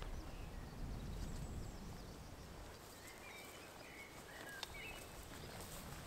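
Birds singing and calling, short chirps and whistles, with a low wind rumble on the microphone over the first two or three seconds and a single click near the end.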